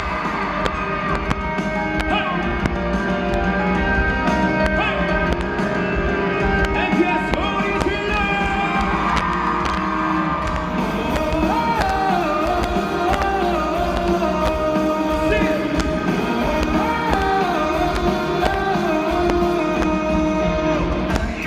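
A live rock band playing loud through a PA, recorded from the concert audience, with steady sustained chords and a wavering melodic line over the top in places.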